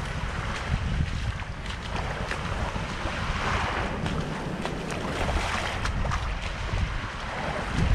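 Small waves washing up on a sandy beach, the wash swelling a couple of times, with wind buffeting the microphone.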